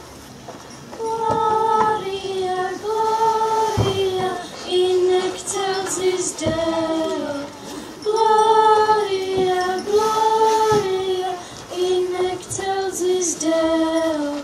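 High voices singing a slow melody in unison, the notes held and stepping up and down.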